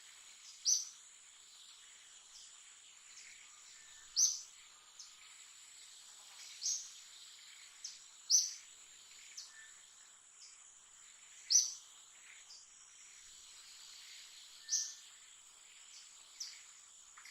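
Natural ambience: a steady high-pitched insect drone, with a bird giving short, sharp calls that each drop in pitch, about seven times at irregular intervals.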